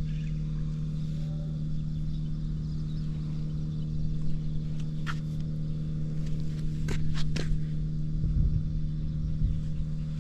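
Honda Cabina 50 scooter's two-stroke 50 cc engine idling steadily at an even pitch, running smoothly with no unusual noises. A few sharp clicks sound about halfway through.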